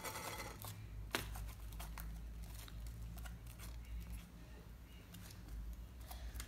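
Sticky slime being handled and pressed into small plastic tubs by hand: faint sticky crackling with a few light knocks, the clearest about a second in, over a low steady hum.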